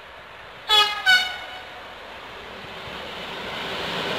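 ÖBB Taurus electric locomotive sounding its horn in two short blasts about a second in, then the rumble of its freight train growing louder as it approaches.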